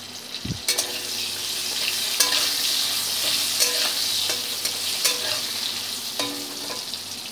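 Potato wedges frying in hot oil in a metal kadai, a steady sizzle that grows louder about a second in. A metal spatula stirs and scrapes them, knocking the pan about six times so that it rings briefly.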